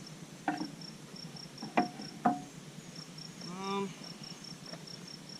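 A cricket chirps steadily in short, high pulses, about five a second. Three sharp metal clanks come about half a second in and twice around two seconds, from work on the backhoe's bucket pins.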